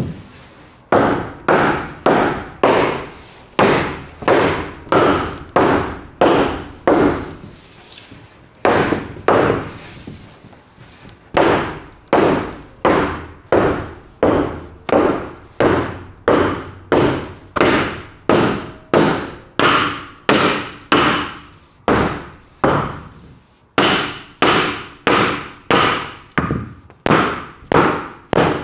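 A wooden block knocking against a sheet of 2-inch green foam board insulation again and again, about one and a half knocks a second with a few short pauses, each knock ringing briefly.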